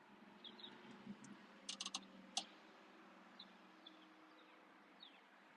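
Near silence with a few faint, short clicks, bunched about two seconds in, as the measurement cursors are set on the oscilloscope capture.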